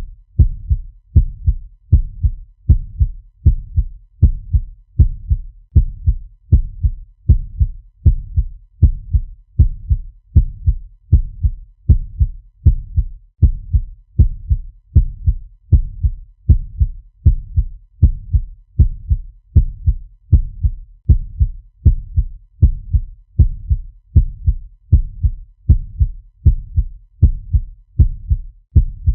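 Fast heartbeat sound effect: a steady, even rhythm of deep lub-dub double thumps, a little more than one beat a second, with no change in pace.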